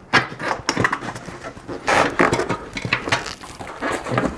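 Rubber inner tube being shoved and worked by hand into a fat e-bike tyre lined with a Tannus Armour insert. It makes irregular rubbing and scuffing noises of rubber on rubber and foam.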